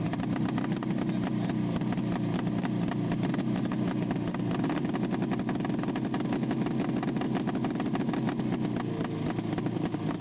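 Hirth two-cylinder two-stroke engine of a 1967 Arctic Cat Panther racing snowmobile, running steadily at an even speed.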